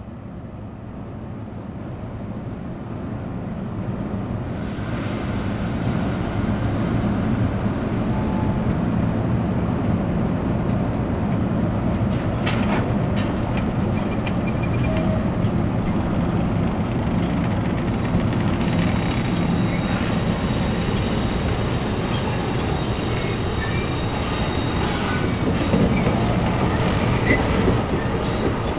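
NJ Transit Multilevel double-deck passenger coaches rolling past on curved track, a steady rumble that builds over the first few seconds and then holds. Faint high wheel squeals come in during the second half.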